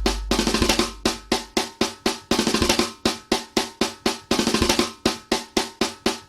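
Instrumental break in a hip hop beat: a quick, uneven run of sharp snare-like drum hits with no bass under them.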